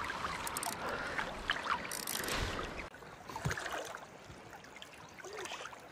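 Creek water running, with splashing as a trout is handled in a landing net in shallow water. It drops quieter about three seconds in.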